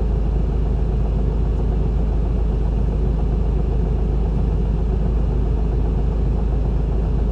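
Isuzu Erga city bus's six-cylinder diesel engine running steadily, heard from inside the passenger cabin.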